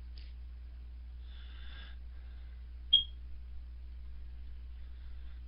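A single sharp click with a brief high ping about three seconds in, over a low steady electrical hum.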